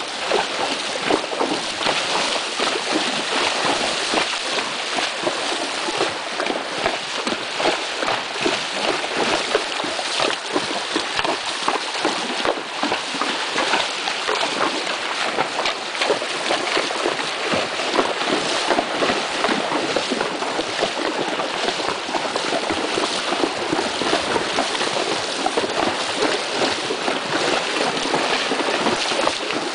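Horses wading through a shallow river, their hooves splashing steadily and irregularly through the water.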